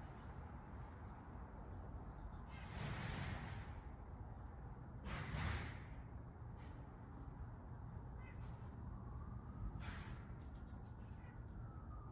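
Outdoor ambience with three harsh crow-like caws, about 3, 5.5 and 10 seconds in, over steady background noise and faint high bird chirps.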